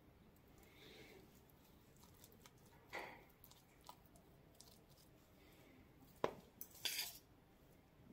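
Faint, soft squishing and scraping of a metal utensil spreading creamy mayonnaise vegetable filling over a slice of bread, with a few light clicks, the sharpest about six seconds in.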